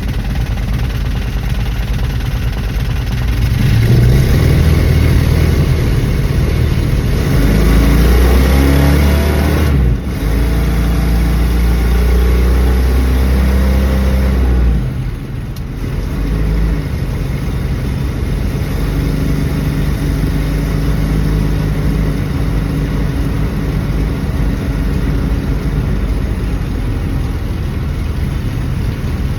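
1974 Dodge Dart's engine running, its speed rising about four seconds in and held high for roughly ten seconds, then dropping suddenly about fifteen seconds in and running steadily at a lower speed.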